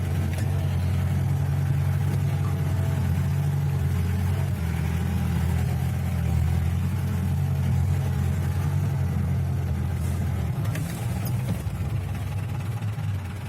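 Motor vehicle engine running steadily with a low drone while driving.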